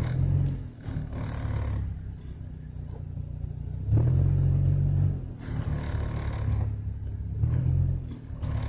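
Low rumble of a car's engine and road noise heard from inside the cabin, swelling louder for about a second around four seconds in and again near the end.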